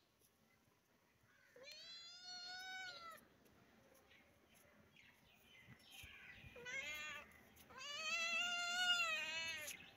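A tabby-and-white kitten meowing three times: a long meow about a second and a half in, a short one near seven seconds, then a longer, louder one straight after it. Each call rises and then falls a little in pitch.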